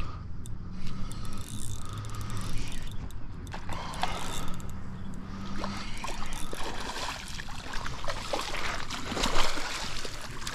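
Shimano Nasci 1000 spinning reel being cranked, its gears whirring as a hooked striped bass is reeled in, then the bass splashing in the shallow water from about the middle, loudest near the end as it is dragged ashore.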